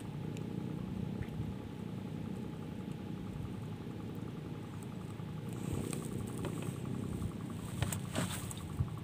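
Steady drone of a boat engine running at a constant low speed, with a few faint clicks near the end.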